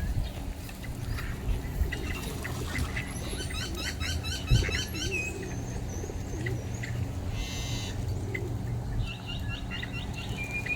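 Small birds chirping, with a rapid run of short high notes about three seconds in and another near the end, over a steady low rumble. One dull thump about halfway.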